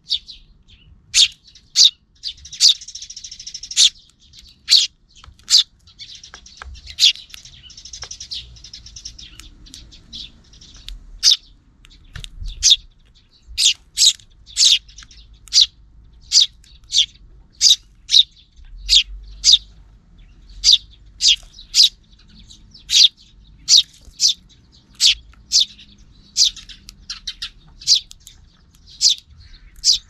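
Eurasian tree sparrows chirping: a steady series of sharp single chirps, about one or two a second, with softer twittering between them for several seconds in the first third.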